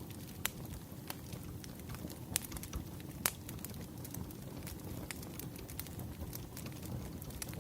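Wood fire crackling over a steady low rumble, with scattered sharp pops; the loudest come about two and a half and three and a quarter seconds in.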